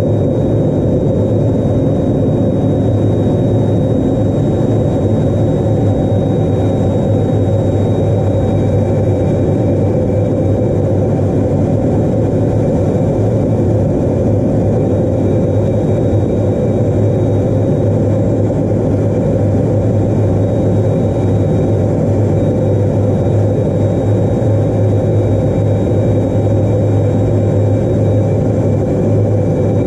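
Steady in-flight cockpit noise of an A-10 Thunderbolt II: its twin turbofan engines and the airflow make a constant low drone, with a thin, steady high whine over it.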